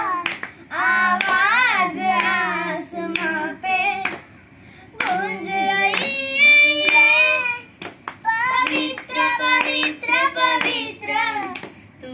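Two boys singing a Hindi Christian devotional song (masihi geet) with only hand claps for accompaniment. The singing breaks briefly about four seconds in.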